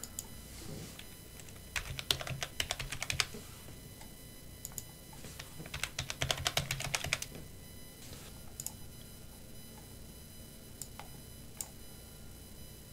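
Computer keyboard typing in two short runs of rapid keystrokes, a password typed and then typed again to confirm it, followed by a few single clicks.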